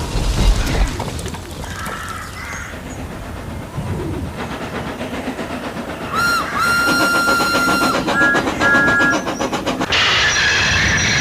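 Steam locomotive running fast with rhythmic chuffing and clattering wheels. About six seconds in its whistle blows, held for about two seconds, then two short toots; near the end a loud high screech starts, like wheels squealing on the rails.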